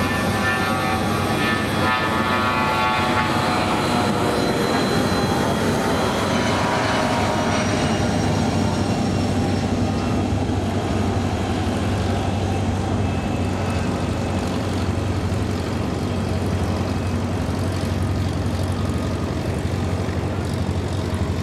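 Bombardier Challenger 600 business jet's twin rear-mounted turbofan engines running at high power as it passes, a whine sliding down in pitch over the first several seconds over a steady low rumble.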